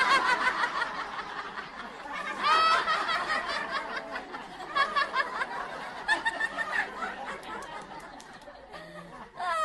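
A woman laughing heartily into a microphone, a long unbroken run of quick ha-ha pulses. The laugh peaks loudest and highest about two and a half seconds in, then goes on more softly.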